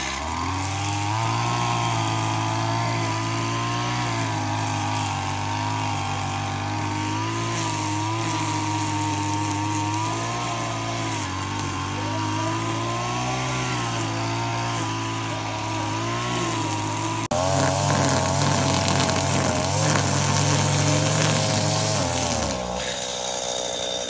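Two-stroke brushcutter engine running at high throttle while cutting tall grass, its pitch wavering as the load changes. About 17 seconds in it gets louder, and near the end the pitch drops as the throttle is let off.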